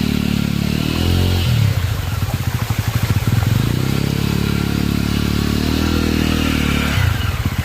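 Single-cylinder motorcycle engine revving up and falling back in repeated surges, held at high revs and labouring as the bike is worked up a steep, rocky off-road climb.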